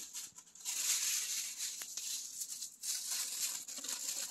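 Black tissue paper rustling and crinkling as it is handled, in two stretches of crisp noise with a brief break about three seconds in.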